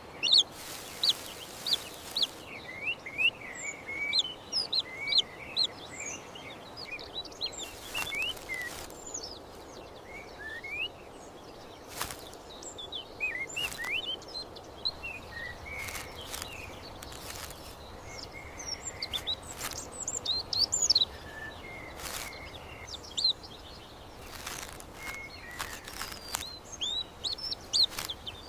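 Small birds chirping: many short, quick calls that slide up and down in pitch, with a few sharp clicks scattered through, over a faint steady hiss.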